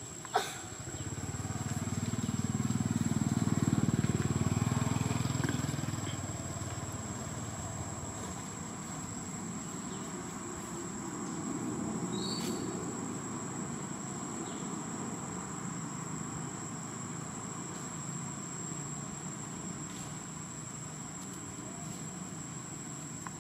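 Outdoor ambience: a distant motor vehicle passes, its low rumble swelling over the first few seconds and fading, with a weaker swell later. Under it runs a steady high-pitched insect whine, with a few faint clicks.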